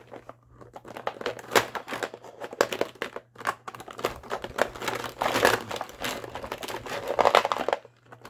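Plastic alcohol-ink markers clicking and clattering against one another as they are picked out of a drawer and sorted, a busy run of small knocks and rattles with a few short pauses.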